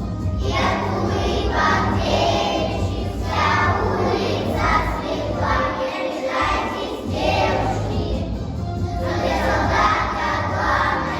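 A group of young children singing a song together in chorus over musical accompaniment.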